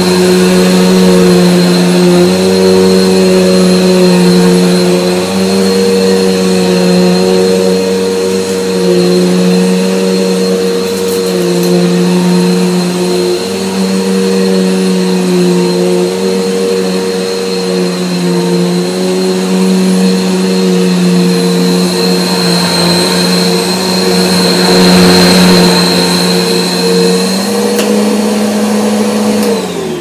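Bernina 6100 upright vacuum cleaner running as it is pushed back and forth over carpet, its motor pitch stepping slightly up and down with the strokes. At the very end it is switched off and the motor starts to wind down.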